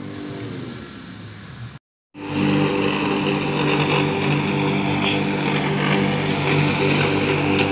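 Max Green corded electric lawn mower's motor running with a steady hum while it is pushed over grass. Early on the hum falls slightly in pitch. It cuts to a brief silence about two seconds in, then comes back louder and steady.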